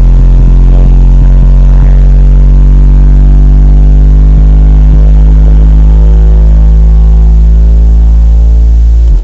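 Lanzar Optidrive subwoofers playing a bass test tone at full volume, heard from inside the car: one steady, very deep note with many overtones. It cuts out briefly near the end.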